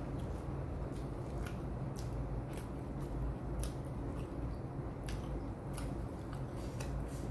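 A person chewing a mouthful of food close to the microphone: soft wet crunching clicks, irregular, roughly twice a second, over a low steady hum.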